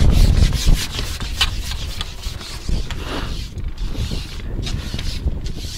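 Irregular scraping and rubbing over a low wind rumble on the microphone; the rumble is heaviest in the first second.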